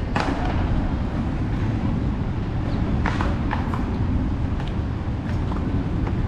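Steady low outdoor rumble, with a few short sharp clicks: one at the start and a cluster about three seconds in.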